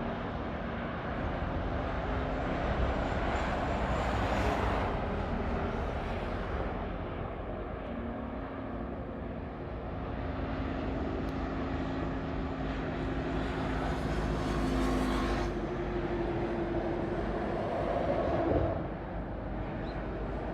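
A motor vehicle running: a steady rumble with a faint engine tone that shifts in pitch now and then.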